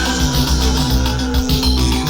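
Studio-recorded band music in an instrumental stretch, with a steady bass line under sustained pitched tones.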